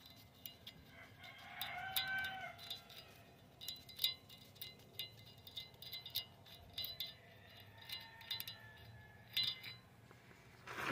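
Light metallic clicks and ticks of a thin spring-steel wheel-stud retaining clip being pried and worked off a lug stud on a brake rotor hub with a flat screwdriver.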